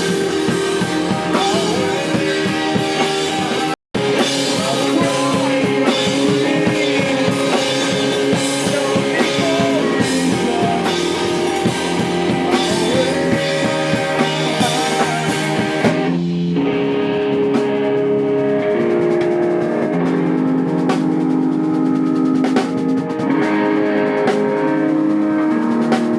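Live rock band playing, with electric guitars, bass and a full drum kit. About sixteen seconds in, the crashing drums drop away and held guitar chords ring on over lighter hits. There is a split-second dropout in the recording about four seconds in.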